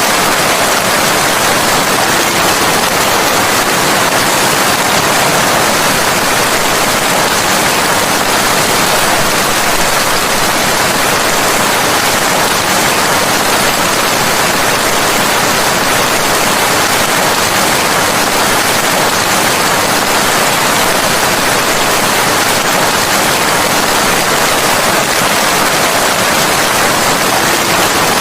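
Steady rain: an even, unbroken hiss with no single drops standing out.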